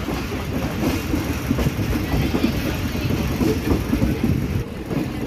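Passenger train carriage running along the track, heard at an open window: a steady rumble of wheels on rails with irregular clatter.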